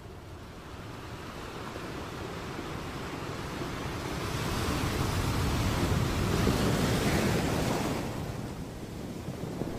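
Ocean surf: a wave's wash swells slowly over several seconds, falls away about eight seconds in, and the next one starts building near the end.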